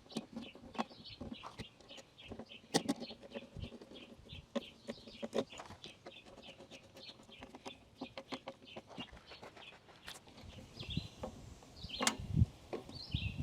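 Birds chirping in quick, repeated short notes, with scattered sharp clicks of metal sink rim clamps being slid into the sink's clamp track.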